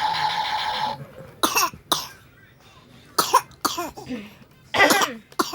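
A baby coughing: a string of short, separate coughs, about six. Before them a steady pitched tone stops about a second in.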